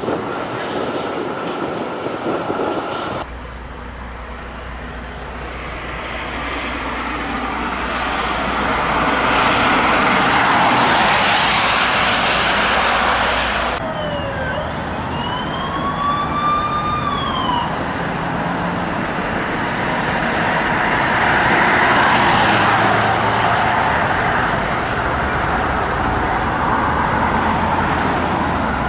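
Traffic noise swelling and fading as vehicles pass, with a Norwegian police siren giving one short wail that rises and then falls about halfway through.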